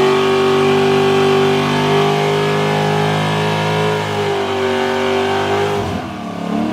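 A tuned Corvette V8 with long-tube headers is held at high revs during a burnout, its rear tires spinning on the pavement under a steady hiss. The engine note stays nearly constant for about six seconds, then the revs drop near the end.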